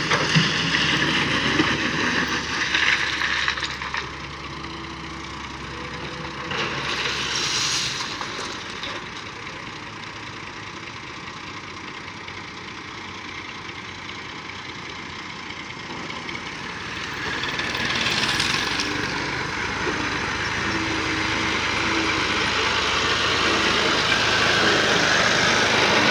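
Heavy machinery engine running, louder for the first few seconds, swelling twice, then growing steadily louder near the end.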